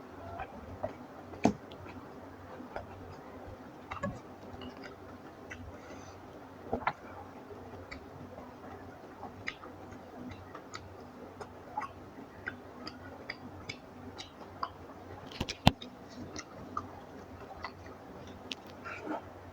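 Eating sounds close to the microphone: irregular wet clicks and smacks of chewing, with one sharper click near the end.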